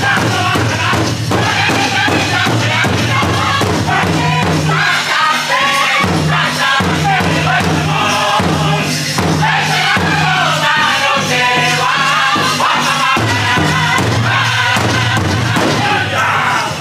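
Powwow drum group singing together over a steady beat on a large drum. The song cuts off suddenly at the end.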